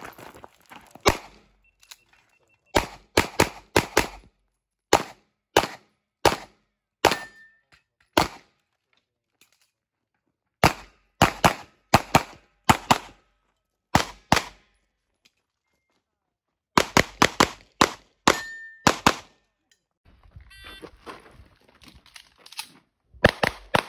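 Semi-automatic pistol firing rapid shots, mostly in quick pairs, in strings broken by a few pauses of about two seconds.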